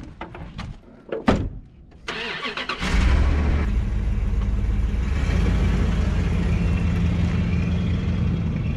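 Pickup truck door slams shut about a second in. Then the 1999 Dodge Ram 2500's gas engine cranks briefly on the starter, catches and runs steadily.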